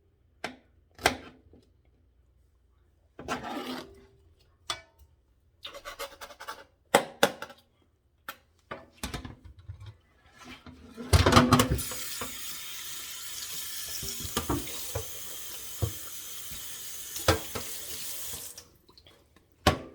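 Scattered knocks and clatters, then a kitchen tap turned on and water running into a pot for about seven seconds, loudest as it starts, before it is shut off.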